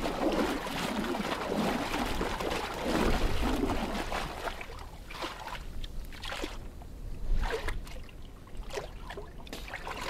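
Water sloshing and splashing in a seal hole in the sea ice. A scatter of short, sharp sounds comes through the second half.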